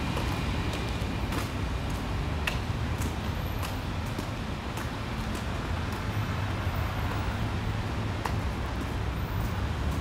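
Steady low rumble and hiss of a subway station's stairway and passages, with a few faint, irregular clicks.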